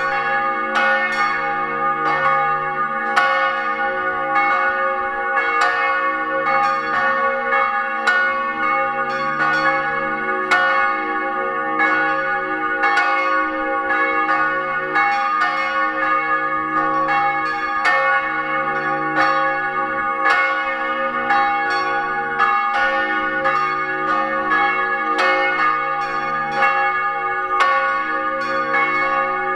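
Several bronze church bells, cast by Alexander Buchner in 1924, swinging and ringing together close up in the belfry. Their strikes overlap in a continuous stream, and the deep hum of the largest bell swells and fades every couple of seconds.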